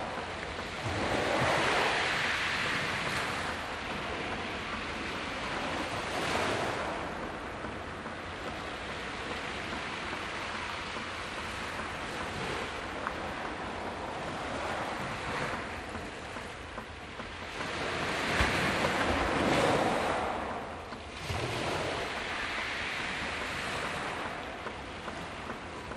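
Sea waves breaking and washing up the beach, in repeated surges, the biggest about a second in, around six seconds in, and from about eighteen to twenty seconds in.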